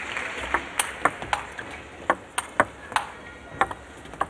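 Table tennis rally: the ball clicking sharply off the rackets and bouncing on the table, about a dozen pings at an uneven pace.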